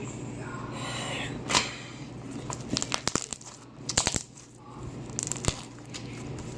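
Glitter slime being squished and stretched by hand, giving sharp pops and clicks in several quick clusters.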